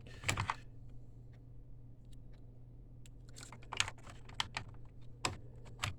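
Small plastic clicks and taps as an ink damper is pressed onto an Epson L1800 printhead, ending with sharp clicks near the end as it snaps into place, the click that shows the damper is properly seated.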